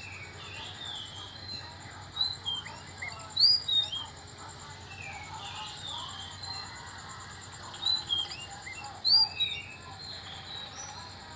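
Oriental magpie-robin singing in two phrases of clear, sliding whistled notes, the first about two seconds in and the second about eight seconds in.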